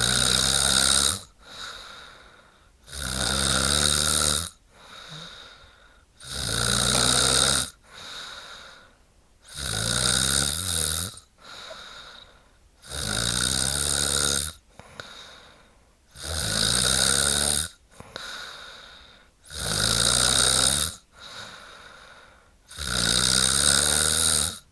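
A woman snoring in a steady rhythm: a loud, buzzing snore about every three and a half seconds, each lasting about a second and a half, with a softer breath between.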